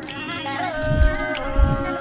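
Music: a melody over a beat, with light ticking percussion and two deep bass hits about a second in.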